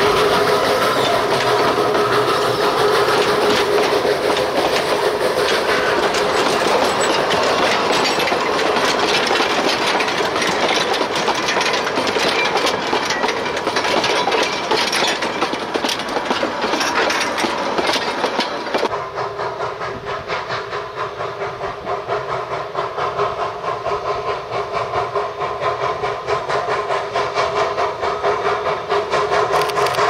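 Narrow-gauge forest railway steam train running on the track, with wheels clicking rapidly over the rails and steady tones over the rattle. About two-thirds of the way through, the sound turns abruptly quieter and duller.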